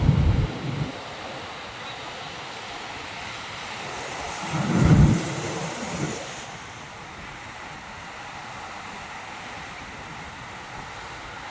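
Ocean surf washing over a rocky shore, a steady hiss of water. Low rumbling gusts of wind buffet the microphone, one fading about a second in and a louder one around five seconds in.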